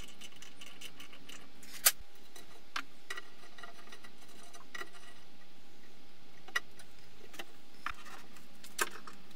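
Scattered small metallic clicks and ticks of hand tools at work: a tap being turned in a tap wrench and a screw driven into the freshly tapped hole in a metal rocket nozzle. The sharpest click comes about two seconds in, with a few more spread through, over a faint steady hiss.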